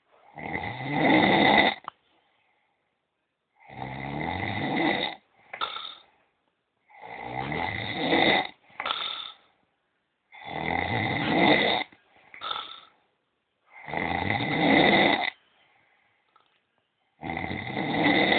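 A sleeping man snoring loudly, six long rasping snores about every three and a half seconds, some followed by a brief shorter sound.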